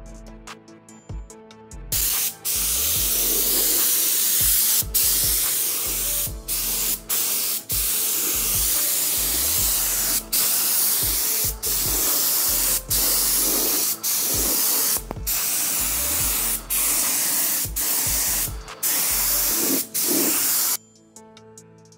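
Gravity-feed spray gun hissing as it sprays thin coats of leather paint onto a plastic panel. The spray starts about two seconds in, is cut off for an instant about a dozen times as the trigger is released, and stops shortly before the end.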